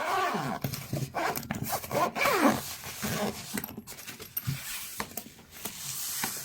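Zipper of a small carrying case for an anti-snoring breathing machine being pulled open, with scraping and clicks as the case is handled.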